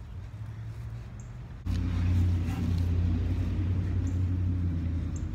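A steady low mechanical hum, as from a motor or engine, starts abruptly about a second and a half in and runs on at an even pitch.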